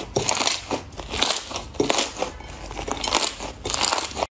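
Slime squeezed and kneaded by hand, crackling and popping in repeated crunchy bursts about two a second; the sound cuts off suddenly near the end.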